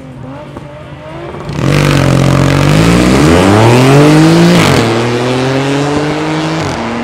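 Two drag-racing cars, a dark Audi estate and a Mk4 VW Golf, launching hard from the start line about one and a half seconds in. Their engines rev up in a steep rising pitch, drop at a gear change about three seconds later, climb again more slowly, and shift once more near the end.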